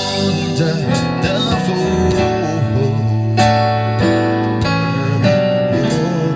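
Worship music with guitar playing chords over sustained instrumental notes.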